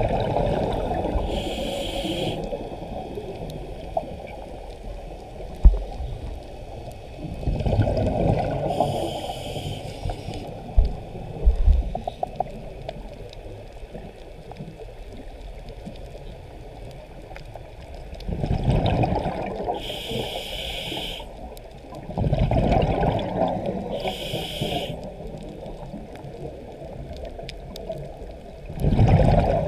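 Scuba regulator breathing underwater: gurgling bursts of exhaled bubbles, each followed by the hiss of an inhale, repeating every several seconds. There are a few short knocks about six and eleven seconds in.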